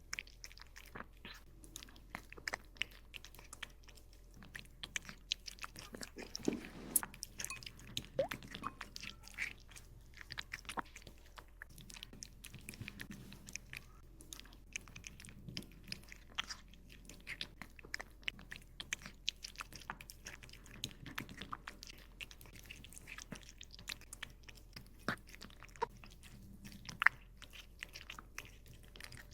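A cat chewing boiled water spinach (kangkung): wet, irregular crunching and biting clicks that keep on without a break.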